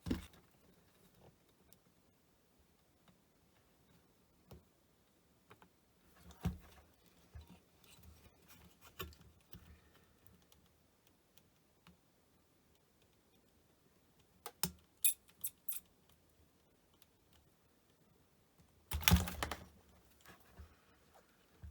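Intermittent small clicks and taps of hand tools working on a circuit board during capacitor replacement, with a quick run of sharp clicks partway through and a louder clatter near the end.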